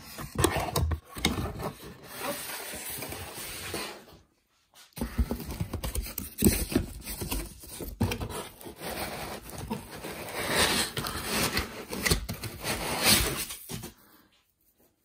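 Irregular rustling and scraping of plastic wrap and cardboard packaging being handled by hand. There is a short pause about four seconds in, and the sound stops about a second before the end.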